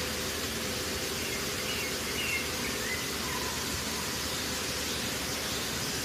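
Steady open-air hiss with a few faint, short bird chirps about two to three seconds in.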